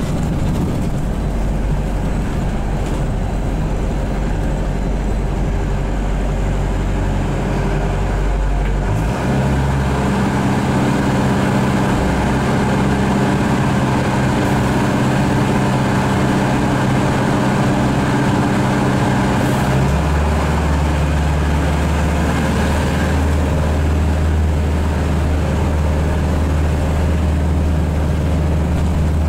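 Van Hool AG300T trolleybus's auxiliary diesel engine running while the bus drives, heard from inside the passenger cabin. A steady drone that changes pitch abruptly about nine seconds in and again about twenty seconds in.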